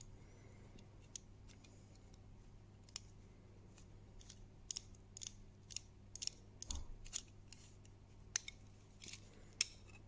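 Faint, irregular metallic clicks and ticks as a screwdriver turns the small pivot screw of a Stanley folding pocket knife, driving it into the reassembled case. The clicks are sparse at first and come more often from about halfway.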